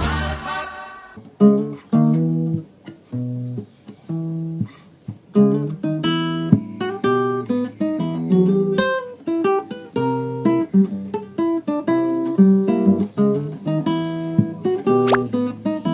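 Acoustic guitar music: single plucked notes and strummed chords in a loose rhythm. A fuller piece of music cuts off about a second in.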